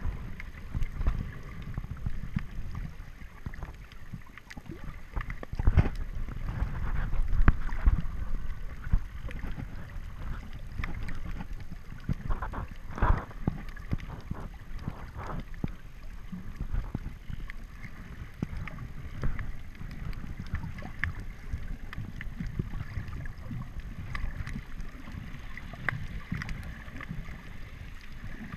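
Underwater sound as picked up by a submerged camera: a muffled low rumble of moving water with scattered clicks and knocks, louder for a couple of seconds around six to eight seconds in.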